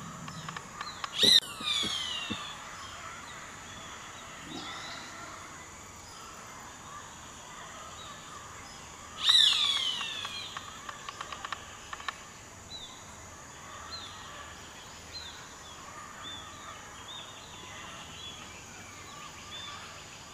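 Rainforest dawn chorus: two loud, harsh bird calls, each falling in pitch, about eight seconds apart, then scattered small chirps, over a steady high insect drone.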